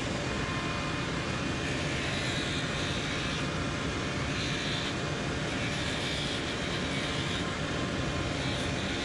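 Motor-driven sanding disc running steadily while the rubber Vibram sole protector and edge of a boot are sanded against it. A rougher grinding hiss rises and falls several times as the sole is pressed on and eased off.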